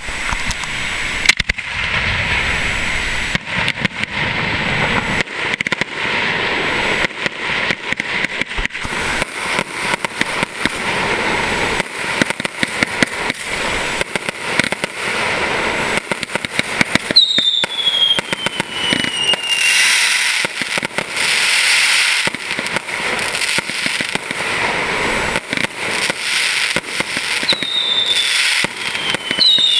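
Fireworks display of aerial shells bursting in a rapid, continuous run of bangs and crackle. Falling whistles sound about halfway through and again near the end.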